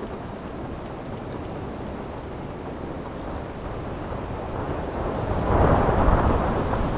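Open-sea ambience of wind and water: a steady rushing wash that swells into a louder rush about five and a half seconds in, then eases.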